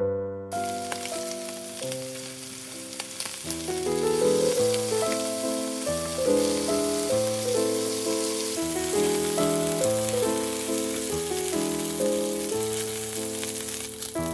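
Piano music playing chords, with a steady crackling hiss laid over it from about half a second in.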